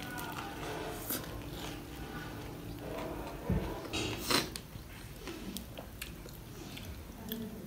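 Someone biting into and chewing a zinger burger, with a few short clicks.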